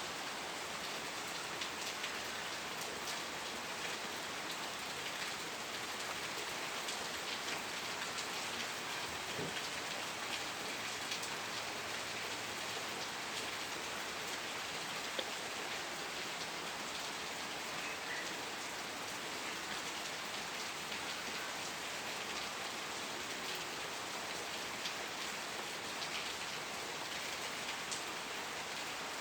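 Steady rain falling on a surface, an even hiss with many small drop ticks.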